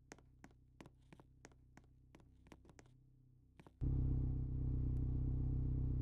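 A series of faint sharp clicks over a low hum, then, about two-thirds of the way in, a much louder low-pitched machine hum starts suddenly and runs steadily.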